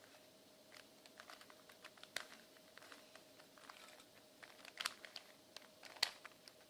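A 3x3 Rubik's cube being turned by hand: faint, irregular clicks and clacks of its plastic layers rotating, with a few louder clacks, over a faint steady hum.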